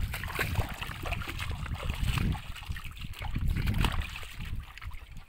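River water splashing and trickling, a busy run of small irregular splashes over a low rumble, dying down near the end.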